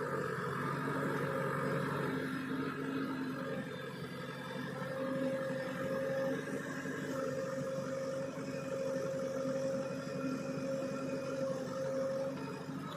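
Heavy machine's diesel engine running steadily at an even speed, with a faint steady whine.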